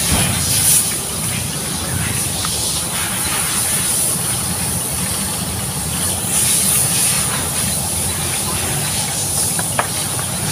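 Steady roadside background noise: a low traffic rumble under a constant high hiss, with one small click near the end.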